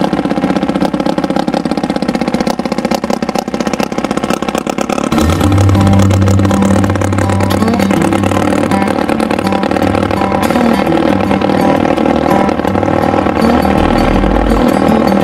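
Motorboat engines running at speed, a steady mechanical drone that grows louder, with a strong low hum, about five seconds in.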